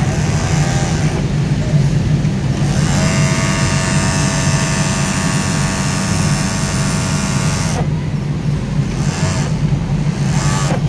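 Juki MO-2400 series industrial overlock (serger) machine stitching and trimming a fabric edge: a high, even whir that runs for about five seconds from about three seconds in, with short bursts of stitching near the start and near the end. A steady low hum continues underneath.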